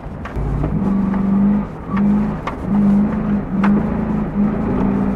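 Hummer's engine running hard in repeated bursts of throttle as it drives over sand dunes, heard inside the cabin with a window open. Several sharp knocks come through over the engine.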